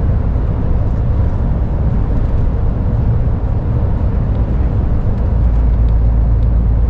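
Steady low rumble of a lorry on the move, heard inside the cab, with a deeper drone building from about five seconds in.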